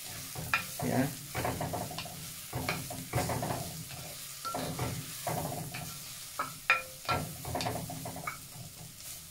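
Mushrooms, garlic and ginger being stirred and sautéed in oil in an earthenware clay pot (palayok): a utensil scrapes and knocks against the pot in irregular strokes over a steady sizzle.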